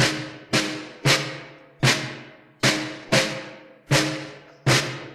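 Percussion music: about eight single drum strikes spaced roughly half a second to a second apart, each with a low pitch that rings and dies away.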